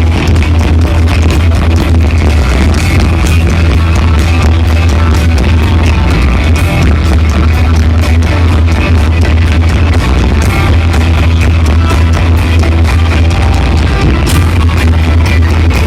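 Loud rock band music with heavy bass, electric guitar and drums.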